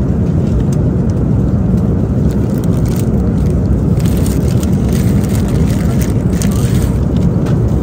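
Steady low rumble of a moving vehicle heard from inside its cabin, with a few light clicks over it.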